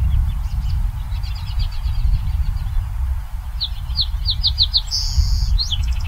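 Song sparrow singing: a run of about five clear notes, then a buzzy note, then a few quick falling notes near the end, with a fainter quick trill about a second in. A steady low rumble runs underneath.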